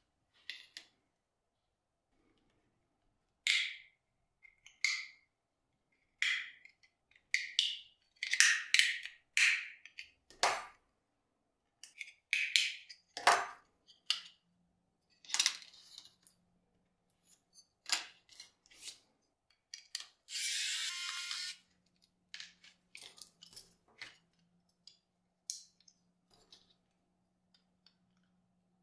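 Irregular plastic clicks, snaps and taps as the plastic shell of a Kingston XS1000 portable SSD is pried apart with a metal spudger and its pieces are handled, with one longer scraping sound about two-thirds of the way through.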